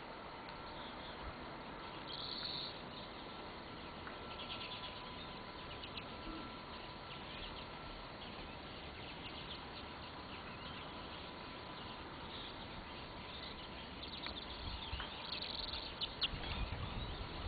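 Small birds chirping in short, scattered calls over a steady background hiss, growing busier near the end, with a few low knocks and rumbles at the end.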